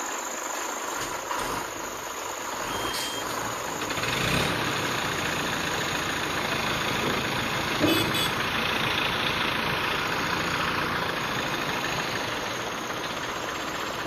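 Heavy engine idling steadily, with a sharp click about eight seconds in.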